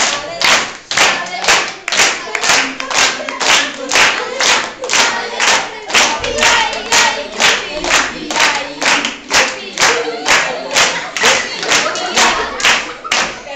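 A group of children and adults clapping in unison to a steady beat, about two claps a second, while singing or chanting together.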